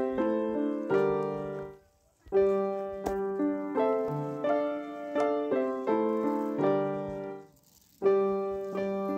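Background piano music: a slow tune of separate notes and chords, each note fading after it is struck, with two short pauses between phrases.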